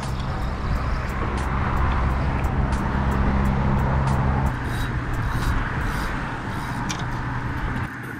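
Road traffic: a motor vehicle's low engine hum that drops away about halfway through, over a steady haze of traffic noise.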